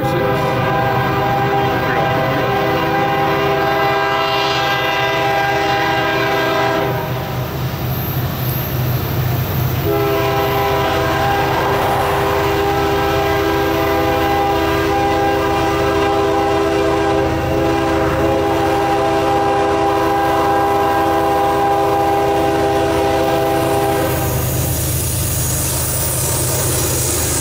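Diesel locomotive air horn on the lead Union Pacific GE C45ACCTE of an approaching freight train, sounded for a grade crossing: a long blast of about seven seconds, a pause of about three seconds, then a second long blast of about fourteen seconds. A steady low rumble of the diesel engines runs under it. Near the end the horn stops and wheel and rail noise rises as the lead units pass close by.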